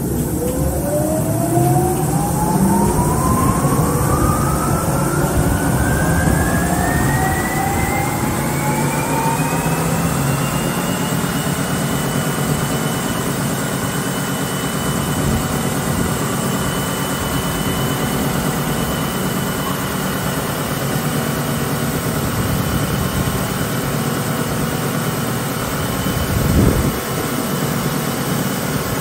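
OTT EU 110 WS wide belt sander with an 11 kW main motor running up to speed: a whine rises steadily for about ten seconds, then holds at one pitch over a steady machine drone. There is a brief louder surge near the end.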